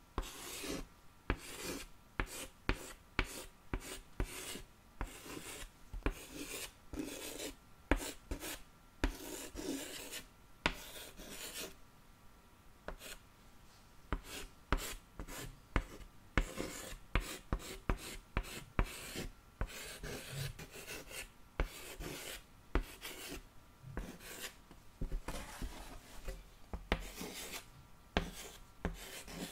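Close, crisp scratching and rubbing strokes on a surface, short and irregular, several a second.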